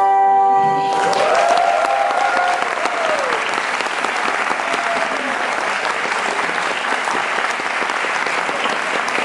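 A choro ensemble's final chord of flute, trumpet, cavaquinhos and seven-string guitar rings on and stops about a second in. Then the audience applauds steadily, with a long rising and falling cheer over it near the start and again midway.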